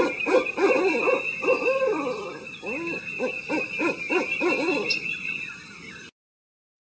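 An owl hooting in a rapid run of short, arching hoots, about three to four a second, over a steady high background tone. The hoots cut off suddenly about six seconds in.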